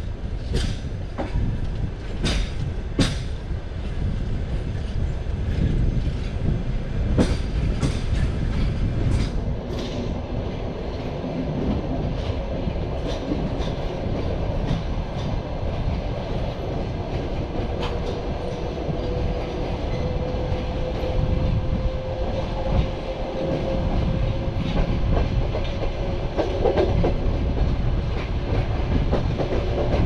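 Passenger-train compartment car running along the line: a steady rumble of wheels on rails, with sharp clicks of the wheels over rail joints, most of them in the first ten seconds. Through the second half a faint whine slowly rises in pitch.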